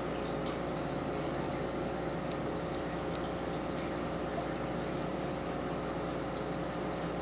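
Aquarium filter running: a steady electric hum with water trickling and bubbling, and a few faint ticks.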